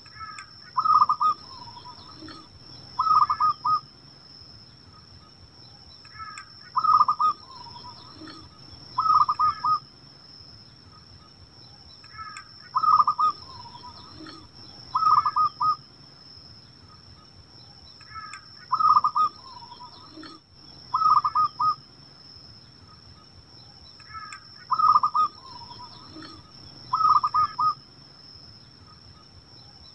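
Zebra dove cooing: short phrases of quick rolling notes, ten of them in pairs that repeat about every six seconds. A steady high-pitched whine runs underneath.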